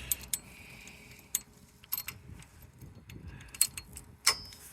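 Irregular metallic clinks and taps of hand tools against the brake caliper and its bolts during refitting. The last clink near the end rings briefly.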